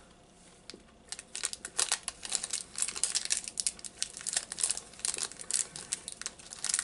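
Plastic candy wrapper crinkling as it is worked open by hand, a fast run of crackles that starts about a second in and keeps going.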